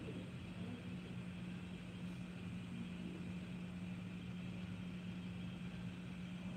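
Steady low mechanical hum with a faint hiss, unchanging throughout: the room tone of a large hall.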